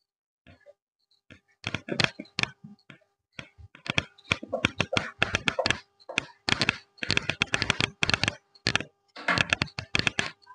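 Whiteboard duster wiping a whiteboard in quick back-and-forth strokes: rapid scrubbing rasps in several spells from about two seconds in.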